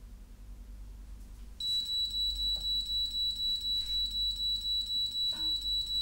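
Arduino alarm's piezo buzzer switching on a little way in and sounding a high, shrill tone that pulses about three times a second: the PIR sensor has detected movement through the doorway and tripped the alarm. A few faint knocks sound under it.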